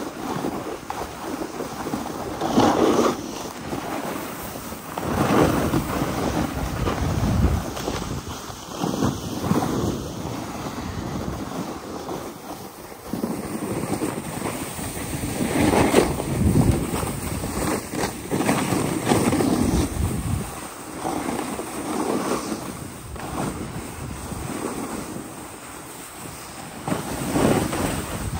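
Wind rushing over a handheld phone's microphone while snowboarding downhill, together with the snowboard sliding and scraping over chopped-up snow. The noise swells and fades every couple of seconds.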